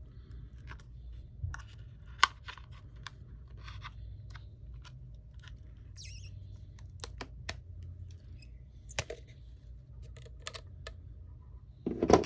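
Scattered small clicks and taps of hand tools and phone parts being handled during an iPhone battery replacement, over a steady low hum.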